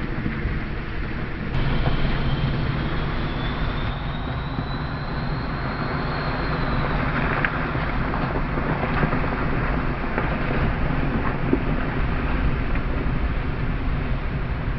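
Land Rover Freelander 2 engine running steadily as it drives through water, with a hiss of splashing and spray through the middle of the stretch. A faint high whine rises and then fades over the first several seconds.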